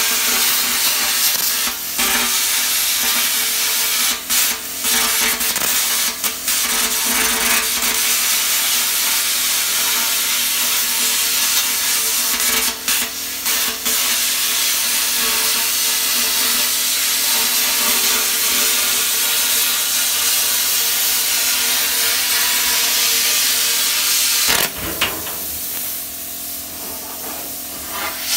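Parkside PPS 30 A1 plasma cutter cutting through a rusty steel drum: a steady loud hiss of the arc and compressed air with a faint hum under it, briefly breaking off a few times. A few seconds before the end it drops to a quieter, thinner hiss.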